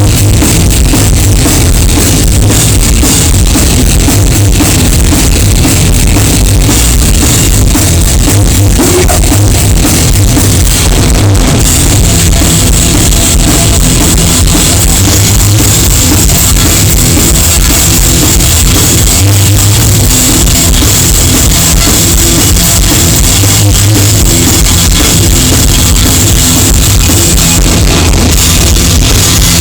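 Live rock band playing loudly: drum kit pounding steadily under distorted guitars and bass, the mix crushed close to full scale.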